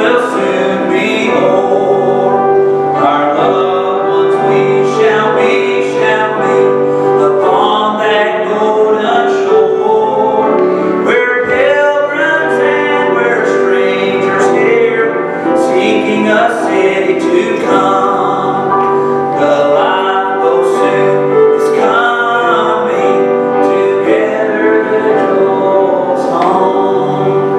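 A man singing a gospel song, accompanied by a piano.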